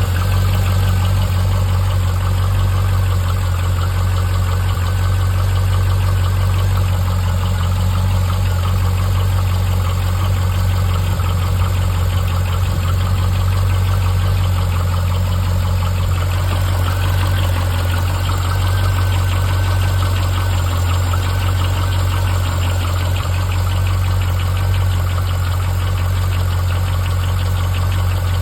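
C5 Corvette's 5.7-litre V8 idling steadily with a rapid ticking knock riding on the engine note, which the owner cannot place between piston slap and a failing lifter.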